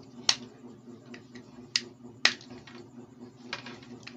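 Sharp clicks and light ticks from electrical hookup wire and small parts being handled and bent by hand at a workbench, with three louder clicks, the last two about half a second apart. A steady low hum runs underneath.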